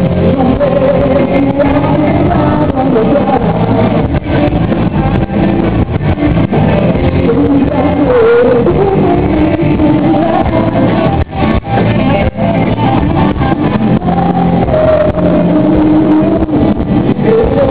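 Live band playing loudly, with a man singing over the music and a steady beat.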